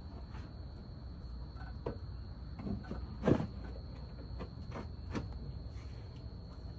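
A few light knocks and clicks as car front-end parts are handled and fitted, the loudest about three seconds in. Under them runs a steady high chirring of night insects.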